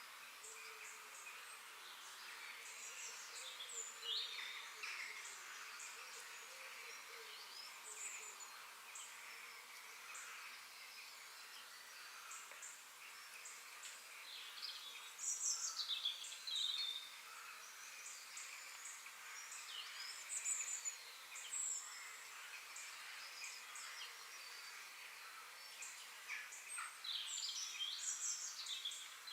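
Forest ambience with several small birds singing and chirping over a faint steady hiss; the calls are loudest about halfway through and again near the end.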